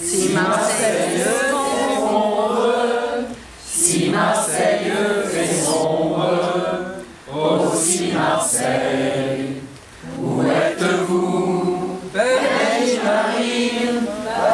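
A group of men and women singing together unaccompanied as an amateur choir, in phrases broken by short pauses for breath.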